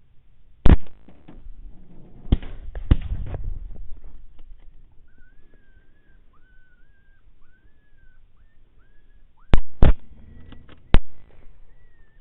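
Rifle shots: a very loud report about a second in, two lesser cracks a couple of seconds later, and three more near the end, two of them a third of a second apart. In the quieter stretch between them, a faint run of short, arched whistled notes repeats.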